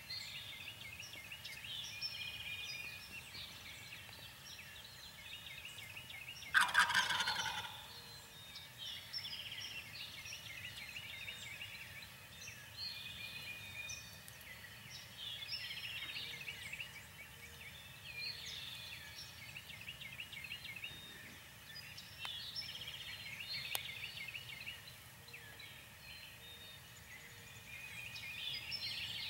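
A wild turkey gobbles once, a brief rattling call about seven seconds in and the loudest sound here. Small birds chirp and trill throughout.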